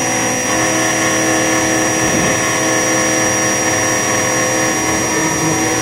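Spindle of a homemade CNC milling machine running steadily, its bit milling outlines into a copper-clad board, with a steady whine.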